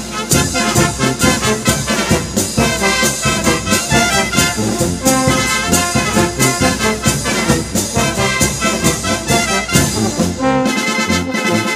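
Brass band playing a lively marinera norteña, with trumpets and trombones over a steady run of percussive hits. The deep bass drops out near the end.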